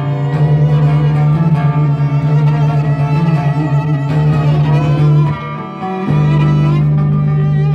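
Live duo of violin and guitar playing: a bowed violin line over a steady low held note, which breaks off briefly about five seconds in and then comes back.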